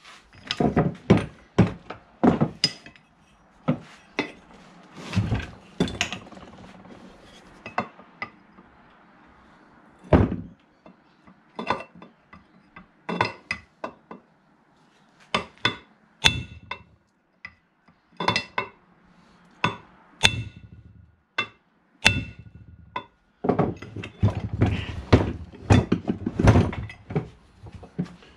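Metal hand tools and steel differential parts clinking and knocking at irregular intervals, some strikes ringing briefly, as a front differential is taken apart.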